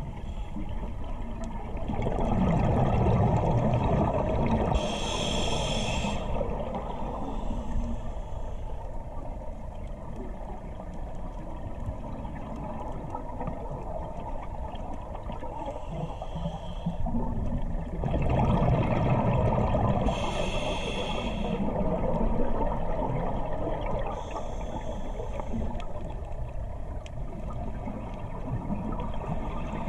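Scuba diver breathing through a regulator, heard underwater: two long spells of low bubbling from exhaled air, each with a short hiss of an inhale through the regulator, and fainter hisses in between.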